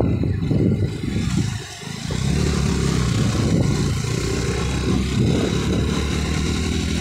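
Mahindra Gusto 125 scooter on the move: its engine running with steady road and wind noise, dipping briefly about two seconds in.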